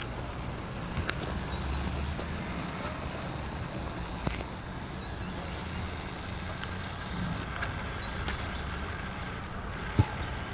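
Open-air ambience: a steady low rumble of distant traffic, with a few short chirping bird calls and one sharp knock near the end.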